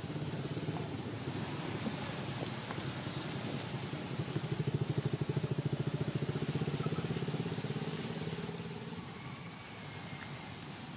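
A small engine running with a fast, even pulsing hum. It grows louder about four seconds in and fades away after about eight seconds.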